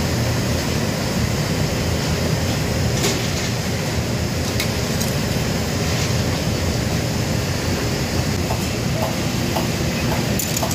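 Steady low rumble of a commercial kitchen's ventilation and burners, with a few light clicks and clinks of dishes or utensils.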